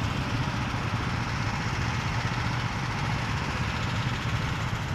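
Small go-kart engines idling, a steady low hum under an even noise.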